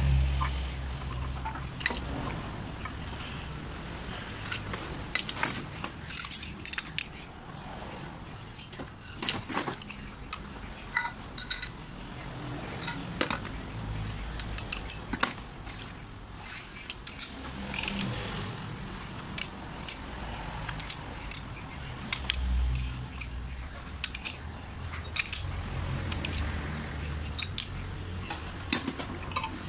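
Small steel parts and hand tools clinking and tapping on a metal workbench, in irregular sharp clicks, during hand reassembly of a diesel injection pump, with a ratchet turned near the end. A low steady rumble runs underneath.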